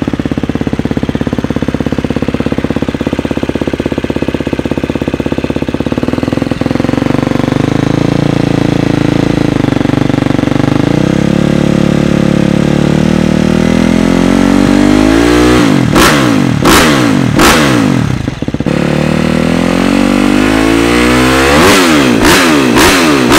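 KTM four-stroke dirt bike with a Pro Circuit aftermarket exhaust and blued header pipe, idling steadily and then being revved. The revs climb from about halfway, followed by three sharp throttle blips and a burst of quick blips near the end. The exhaust note is peppery and sounds like a race bike.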